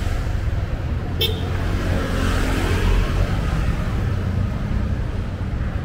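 Street traffic with a steady low engine rumble. A short, sharp sound comes about a second in, and a vehicle passes close by around two to three seconds in.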